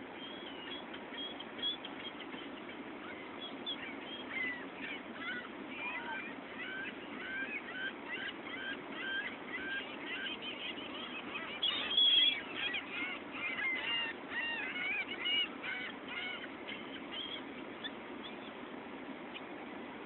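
A flock of gulls calling: many short overlapping calls that build up after a few seconds, are loudest a little past halfway, and die away near the end. A steady low hum runs underneath.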